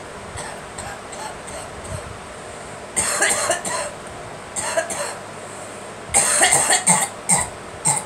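A woman coughing in bouts: a short fit about three seconds in, another near five seconds, then a longer run of coughs near the end.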